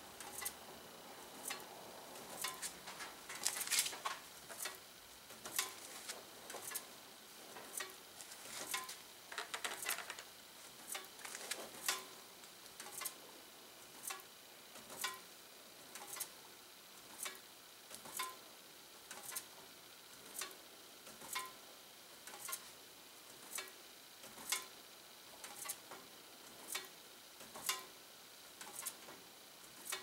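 Box fan blades turning slowly and ticking against a foil-covered paper tag about once a second, with a short flurry of scraping a few seconds in and again about ten seconds in. Each tick is a blade brushing the foil contact that closes the circuit and flashes the incandescent bulb.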